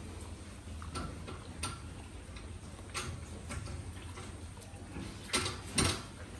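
Scattered sharp clicks over a low steady hum, ending with two louder knocks about half a second apart.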